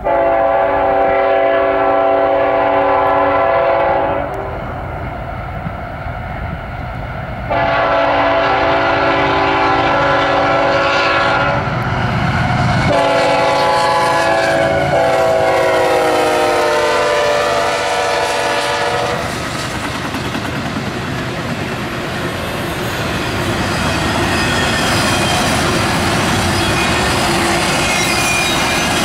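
A CSX diesel freight locomotive's air horn sounds a multi-note chord in three long blasts, the last one dropping in pitch as the locomotive passes. From about two-thirds of the way in, the double-stack container cars follow with a steady rumble and the clickety-clack of steel wheels on rail joints.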